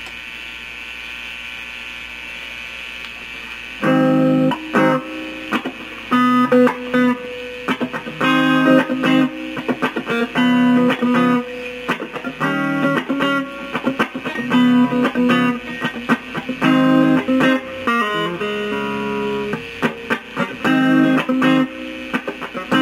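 Clean electric guitar through a Kokko Mini Compressor pedal, played on a semi-hollow ES-335-style guitar's humbucker pickups. Steady amp hiss for about four seconds, then short strummed chords with brief pauses between them.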